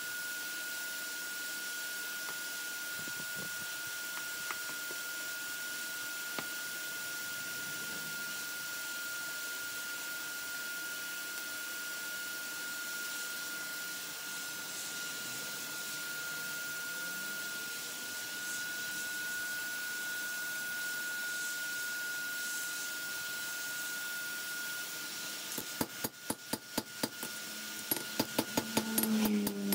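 A steady high whine with hiss, then, from near the end, a quick run of hammer blows, about four a second, ringing on a steel anvil as the hot lawnmower-blade bowie blank is forged.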